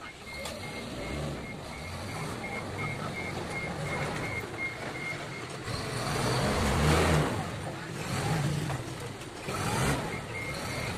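Forklift's warning beeper pulsing about two to three times a second over its running engine. The beeping stops around the middle while the engine revs up loudly as the forklift drives in, then resumes near the end.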